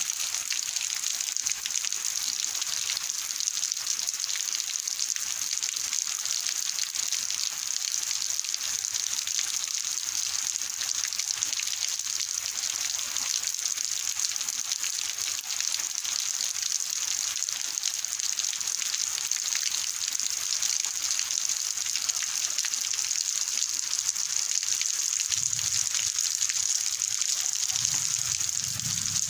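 Heavy rain pouring down in a steady hiss, with water running off. A faint low hum comes in near the end.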